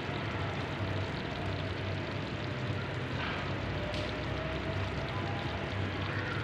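Pot of potatoes in tomato sauce simmering on a stove: a steady rushing noise with a low hum under it.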